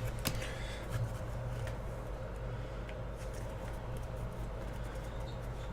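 Faint rustling and a few light clicks of trading cards and packs being handled, with a sharp click about a quarter second in, over a steady low hum.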